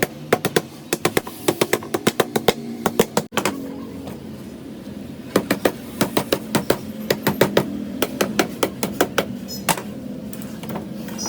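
Staple gun fired in quick runs of sharp clicks, about four or five a second, with a pause of a couple of seconds in the middle, fastening a new cover onto a motorcycle seat base.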